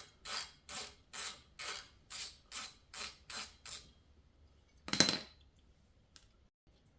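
Wheel hub on a 2017 Chevy Equinox turned by hand in short pushes, its worn wheel bearing grinding with each push, about twice a second for the first four seconds. Then a single sharp metallic clank about five seconds in.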